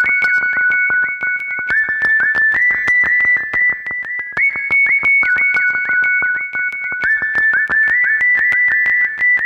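Electronic music: a high, pure lead melody slides between notes over a fast, steady clicking beat. The same phrase starts over about four seconds in.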